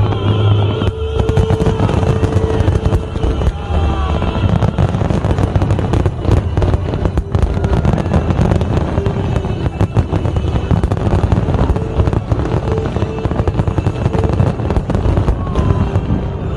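Fireworks display: a dense, continuous crackling and popping of shells bursting, with a few short whistling glides.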